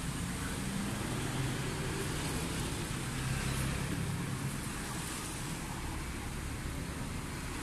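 Steady street traffic: a continuous low engine rumble and hum from passing and idling road vehicles.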